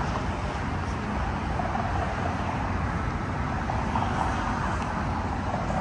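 Steady outdoor city background noise: a low rumble of road traffic.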